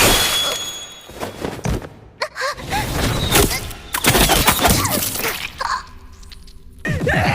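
Stylized anime action sound effects: a loud hit, then a quick string of separate crashing, shattering impacts. Music comes in near the end.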